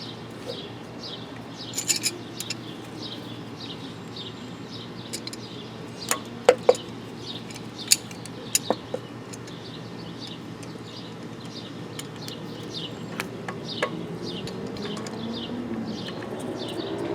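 Small metal clicks and clinks of carburetor parts and tools being handled during reassembly, a handful of sharp ticks spread out. Behind them a bird chirps over and over in short falling notes, two or three a second, through the first half.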